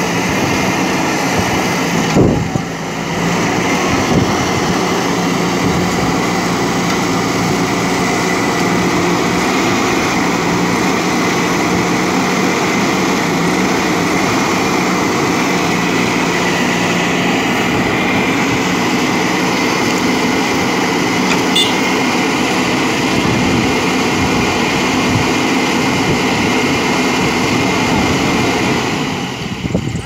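JCB backhoe loader's diesel engine running steadily as the machine works, with a single sharp knock about two seconds in.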